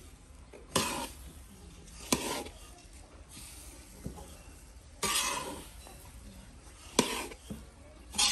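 A spatula stirring a dry, crumbly semolina and dried-fruit mixture in a large wok. It makes a sharp scrape of the blade against the pan every second or two, with softer rustling of the mixture between.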